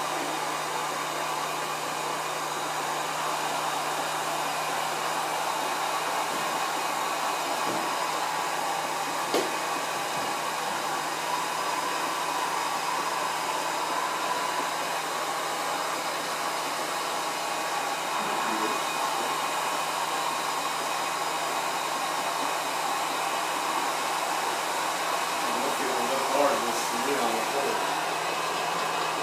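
Electric honey extractor running: a steady whir with a constant low hum.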